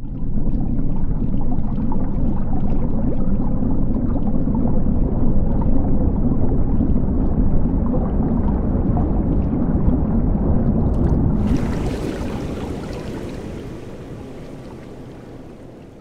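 Underwater ambience: a deep, steady rumble with gurgling water and scattered crackles. About eleven seconds in a sudden airy hiss joins it, and the whole sound then fades away gradually.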